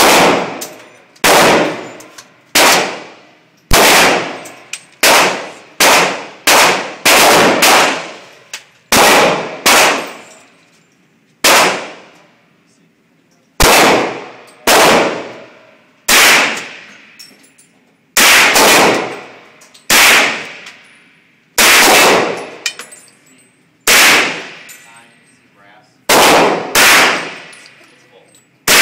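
AR-15 rifle fired semi-automatically, about two dozen shots at an uneven pace of roughly one a second, some in quick pairs, each shot echoing away.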